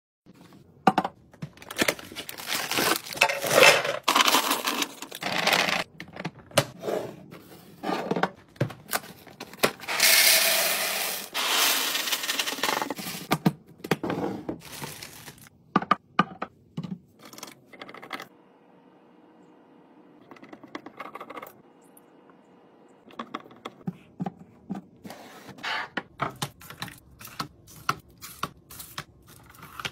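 Grocery packaging and clear plastic storage containers being handled: cardboard and wrappers rustling, a long rush of dry O-shaped cereal poured into a plastic canister, and many sharp clicks and taps as lids are pressed shut and items are set into plastic bins. A quieter stretch comes just past the middle.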